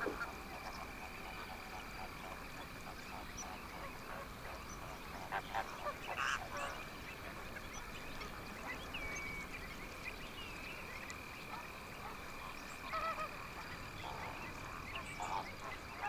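A flock of greater flamingos giving scattered goose-like honking calls, a few louder ones about five to six seconds in and again near the end, over a faint steady high hum.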